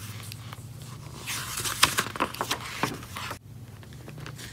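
Page of a picture book being turned by hand: paper rustling and sliding for about two seconds, starting about a second in, over a steady low hum.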